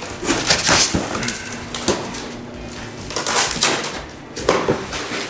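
Packing material rustling and crinkling in quick irregular bursts as it is handled during unboxing.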